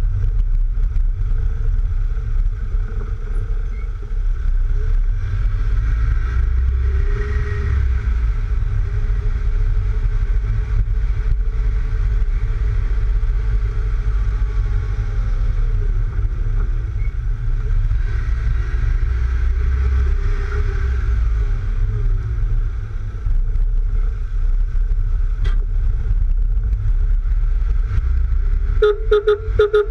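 Wind buffeting the microphone of an action camera mounted on the side of a lowered Mk3 Volkswagen Golf as it drives, with road noise and a faint engine note rising and falling under it. Near the end a rapid pulsing sound cuts in.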